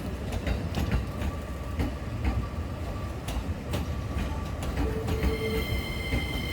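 Railway sound: a steady low rumble with a run of sharp clicks and knocks. About five seconds in, steady high tones join.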